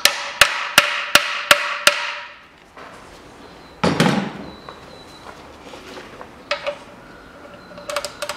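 Hammer striking a wrench on a steel oil-pan drain plug: about six sharp, ringing metal blows, roughly two and a half a second, in the first two seconds. They are meant to shock loose a drain plug that may be seized. A dull thump follows about four seconds in, then a few light metallic clinks near the end.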